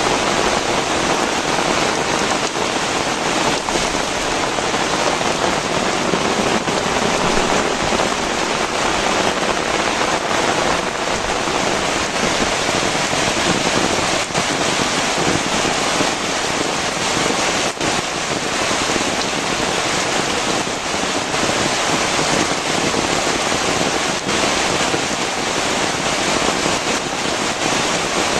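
Heavy rain pouring steadily, with a dense even hiss of drops and scattered sharper drop hits.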